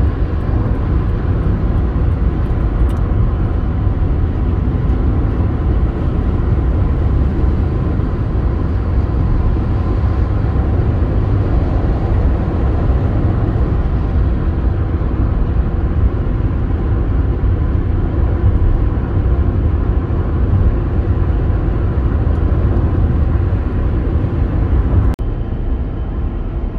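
Steady low rumble of road and engine noise inside a car's cabin while cruising. About 25 s in it cuts abruptly to a slightly quieter drone.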